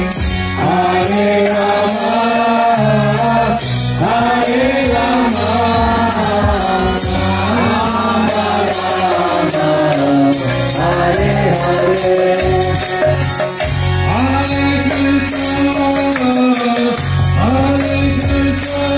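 Devotional kirtan music: voices chanting a mantra over sustained low notes, with jingling percussion keeping a steady beat.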